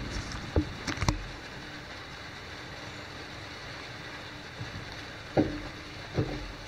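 Steady rain falling in a thunderstorm, with a handful of sharp taps from heavy drops close by: a few about a second in, and the loudest about five and a half seconds in.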